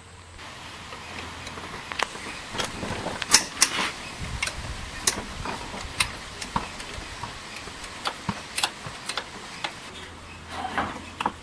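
Irregular sharp metallic clicks and clinks of a hand wrench working loose the two 8 mm bolts that hold a scooter's starter motor, with a quicker flurry of clicks near the end.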